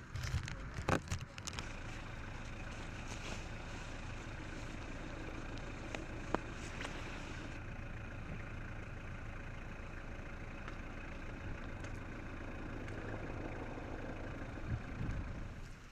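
A vehicle engine idling with a steady low hum. A few knocks come in the first couple of seconds, a single sharp tick about six seconds in, and a low thump near the end.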